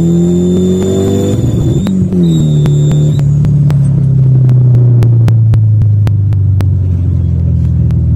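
Turbocharged 2.0 four-cylinder engine of a VW Golf Mk4 pulling at full throttle, its revs rising for about two seconds before a gear change. After the shift it pulls briefly, then the throttle comes off and the revs fall slowly as the car slows, with a run of sharp clicks. A high steady whistle sits over the engine while it pulls and stops about three seconds in.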